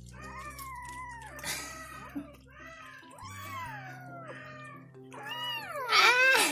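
Tabby kitten yowling over its food while a hand touches it, guarding its meal: three long calls that waver and fall in pitch, the last the loudest. A child yells in the background.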